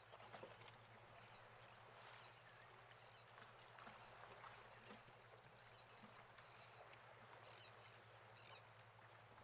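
Near silence: faint room tone with a steady low hum and a few faint high chirps.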